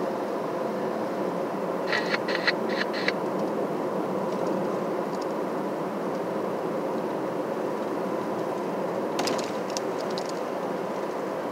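Steady road and engine noise of a car driving, with a faint steady hum. Two short runs of quick sharp clicks or rattles, about two seconds in and again near the end.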